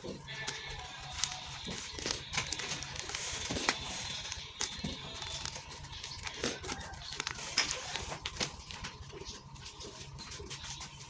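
Blocks of gym chalk being crunched and crumbled: a run of irregular sharp crackles and snaps.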